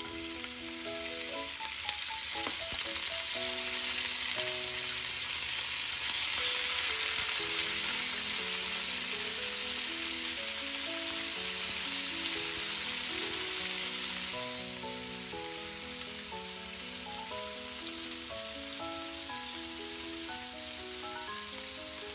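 Diced pancetta sizzling and frying in hot olive oil in a nonstick frying pan as it is stirred; the sizzle is strong, then eases to a quieter, steady fry about two-thirds of the way through.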